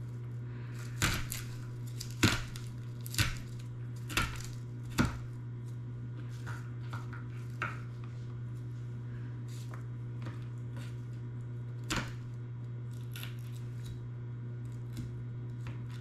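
Knife slicing garlic on a cutting board: five sharp knocks about a second apart, then a few fainter taps.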